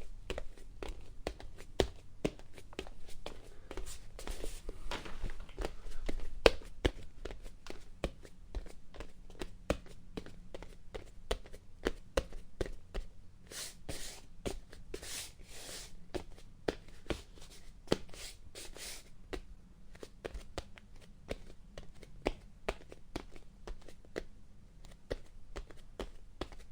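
Bare feet walking on a wooden floor: a run of soft, irregular footfalls and light taps. A few short hissy sounds come in a cluster around the middle.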